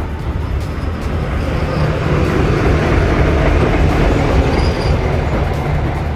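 ČKD class 749 diesel-electric locomotive passing close by, its diesel engine rumbling and its wheels running on the rails. The sound swells to a peak about three to four seconds in, then eases a little.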